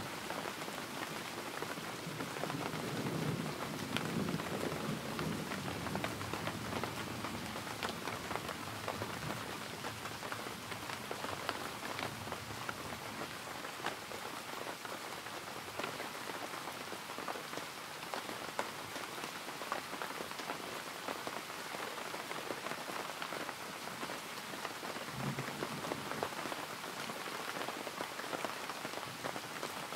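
Steady rain, with many separate drops heard through it. A low rumble of thunder dies away in the first few seconds.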